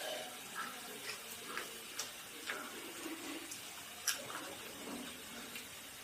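Close-miked eating sounds: wet chewing and mouth smacks, with sharp little clicks a few times a second over a soft wet hiss.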